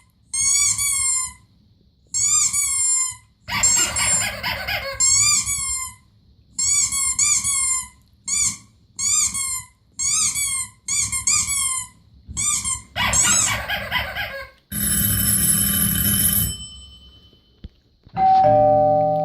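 A run of played-back sound effects: short high-pitched warbling calls repeated over and over, a harsh buzzing tone lasting about two seconds, then a single bell chime near the end that rings out and slowly fades.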